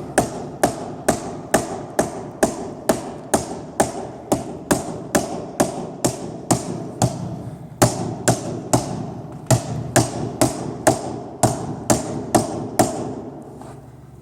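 Rubber mallet tapping a drum shield panel down into its tight full-length hinge: a steady run of sharp taps, about two a second, that stops near the end.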